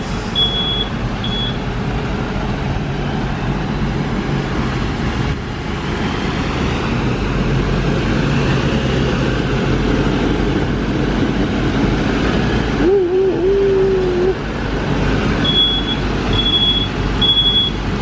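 Large vehicle engine running steadily on a bus lot. A vehicle's reversing alarm beeps about once a second at the start and again near the end, and a short wavering whine comes about two-thirds of the way through.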